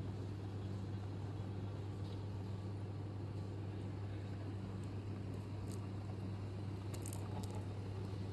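Steady low electrical hum with a faint background hiss, and a few faint, brief clicks near the middle and later on.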